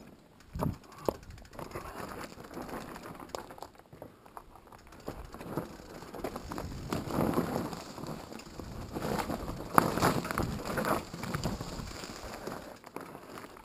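Mountain bike rolling down a rocky trail: tyres crunching over loose stones, the bike rattling, and irregular knocks as the wheels strike rocks, busiest and loudest in the second half.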